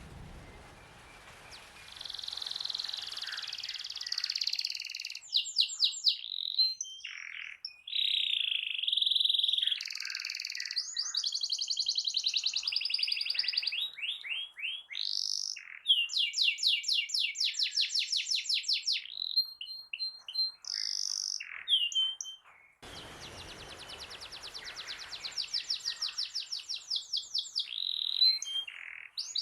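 Domestic canary singing vigorously: a long, varied song of fast trills and rapidly repeated notes in high phrases, with short breaks between them. This is the kind of full 'gacor' song used as a master recording to tutor other canaries.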